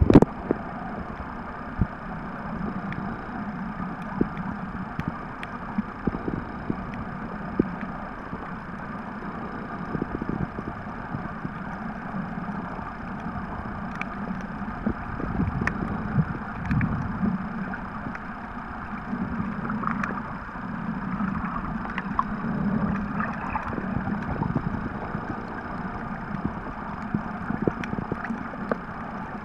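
Muffled underwater noise heard through a waterproof camera housing: a steady low rumble with scattered faint clicks. A loud splash right at the start as the camera breaks the surface.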